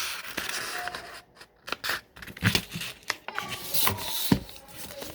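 A sheet of origami paper being handled and folded: irregular rustling and crinkling with sharp creasing clicks, the loudest about halfway through and again near the end.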